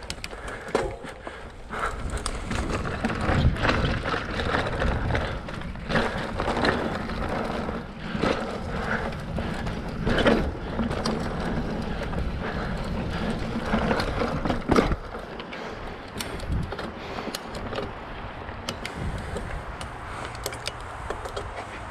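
Specialized Rockhopper mountain bike ridden along a dirt trail: continuous rough tyre-and-rattle noise with a low rumble, broken by frequent sharp knocks and clatters as the bike goes over bumps.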